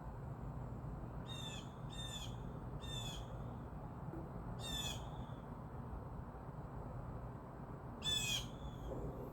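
A series of short, high-pitched animal calls, five of them at uneven intervals, each well under half a second, over a steady low hum.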